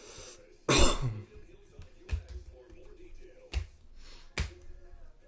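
Trading cards and packs being handled: a louder rustling burst about a second in, then sharp taps every second or so as cards are flicked and set down. Faint music plays underneath.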